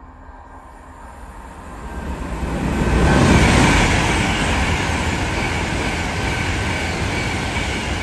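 A train passing through the station out of sight, its rumble and rushing noise swelling over a couple of seconds to a peak, then staying loud.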